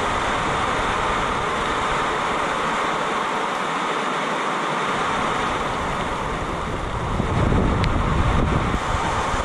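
Heavy rain pouring in a storm, a steady hiss, with wind gusts buffeting the microphone, stronger from about seven seconds in.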